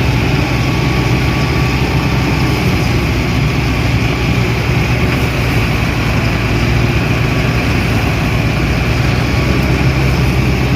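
Diesel engine of a Mahindra Novo 605 tractor working a Balkar B 525 rice harvester, running at a steady, unchanging speed with a constant low drone and machinery noise.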